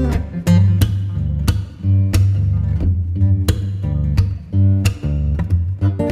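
Background music: strummed guitar over a steady bass line, the strokes falling in an even beat.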